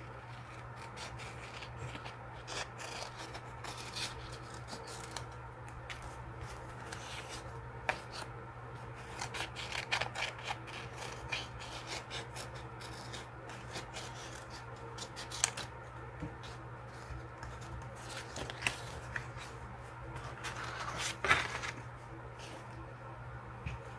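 Small scissors snipping around flower stickers on a paper sticker sheet: a string of quick, irregular snips with light paper rustling and rubbing, with the sharpest snaps about 15 and 21 seconds in.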